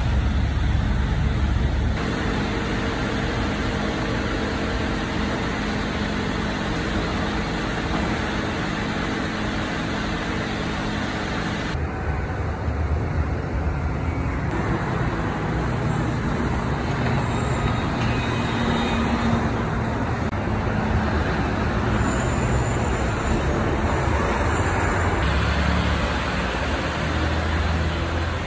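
Garbage truck engines and road traffic in several short clips: a parked rear-loader garbage truck running with a steady hum, then the noise of traffic on a city road.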